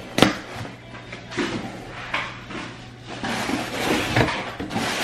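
Cardboard shipping box being opened by hand: a sharp snap just after the start, then scattered scraping and rustling of the cardboard flaps and packing, busier over the last couple of seconds.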